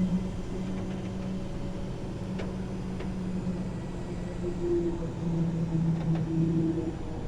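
Tow truck's engine running with a steady drone while the truck is worked onto the flatbed bed. It swells louder for a couple of seconds about five seconds in, with a few faint clicks.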